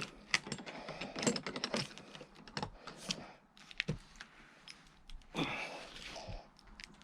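Irregular metallic clicks, small knocks and short scrapes as a steel eyebolt is tightened into a magnet with a hand tool.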